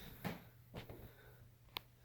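Quiet room with a few faint knocks, and one sharper click about three quarters of the way through.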